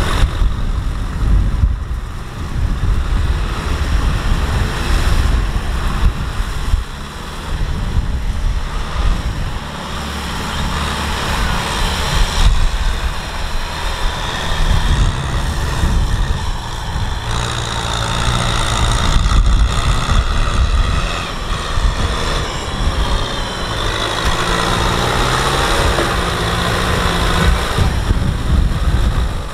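Kubota M6040SU tractor's diesel engine running hard under load, pulling a rotary tiller through deep mud, its engine note shifting several times.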